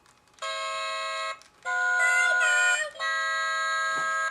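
Fisher-Price Singamajigs singing toys singing in electronic voices: three long held notes of about a second each with short breaks between, a second toy's voice wavering over the middle note.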